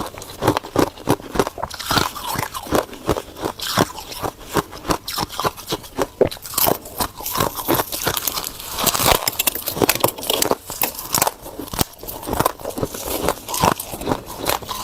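Freezer frost being bitten and chewed close to the microphone: a dense, continuous run of sharp crunches, several a second.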